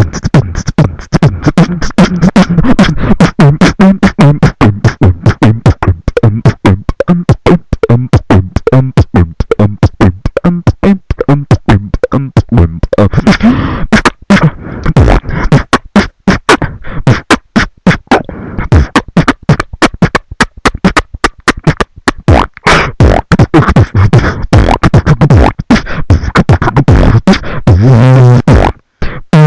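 Human beatboxing into a close microphone: a fast run of vocal kick, snare and hi-hat sounds with hummed bass tones, loud and unbroken except for a short break near the end.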